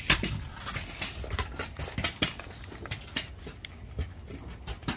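Stainless steel barbecue tools clinking and knocking irregularly as they are handled on a stone tabletop and in their carry case.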